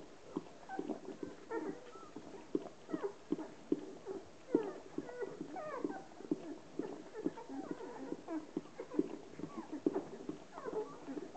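A litter of newborn Hovawart puppies squeaking and grunting while nursing: many short squeaks that fall in pitch, overlapping one another, mixed with quick low grunts and clicks.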